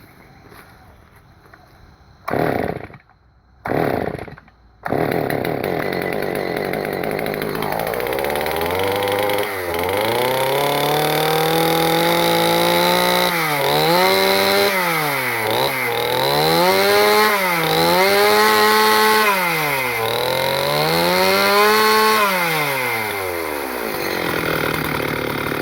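Solo 645 two-stroke chainsaw firing in two short bursts, then catching about five seconds in and running. It is revved up and down about five times, then drops back to a lower idle near the end. This is its first start after sitting two years, on fresh fuel.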